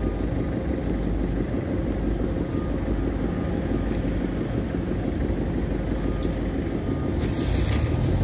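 Engine of nearby construction machinery running steadily with a low rumble. A short hiss comes about seven seconds in.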